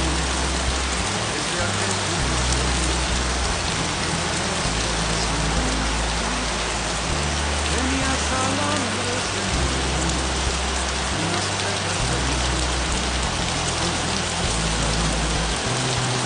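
Steady rain falling, a dense even hiss, with low sustained notes of background music changing every second or two underneath.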